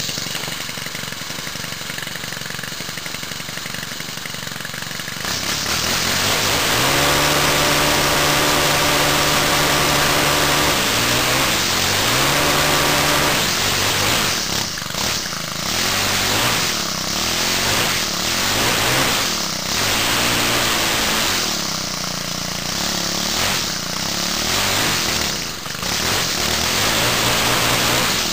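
Warmed-up Cub Cadet four-stroke string trimmer engine idling, then opened to full throttle about five seconds in and held at top revs, where it reaches its rev limiter. Through the second half it is revved up and let back down over and over.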